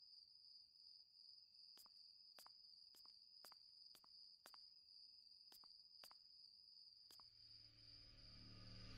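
Faint night-time insect ambience: a steady high thin trill with a sharp chirp about every half second, the chirps stopping a little after seven seconds in.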